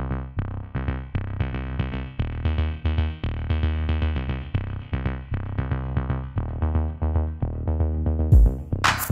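Electronic background music: a quick, steady run of short synthesizer notes over a heavy bass, with a swish near the end.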